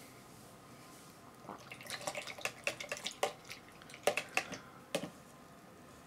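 A paintbrush being rinsed in a jar of water: an irregular run of small splashes and clicks, starting about a second and a half in.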